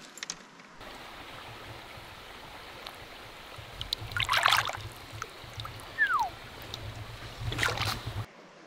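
Creek water sloshing and splashing around a hand as a small Australian bass is released: two bursts of splashing, about four and seven and a half seconds in, over a steady water noise. A short falling whistle sounds about six seconds in.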